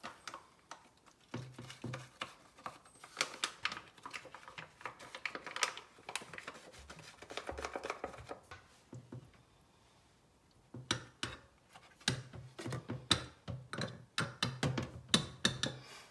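A plastic pack of raw cat food rustling and crinkling as it is squeezed out, then a metal spoon tapping and scraping minced raw meat in small ceramic dishes, a quick irregular run of clicks and taps in the last few seconds.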